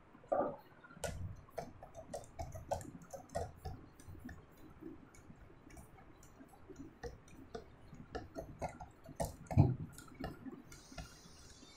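A cloth wiping a whiteboard: faint, irregular soft rubs and small knocks against the board.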